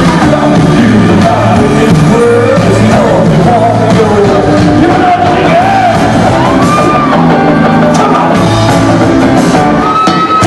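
Live rock band playing loudly: electric guitar and drums, with a male lead singer.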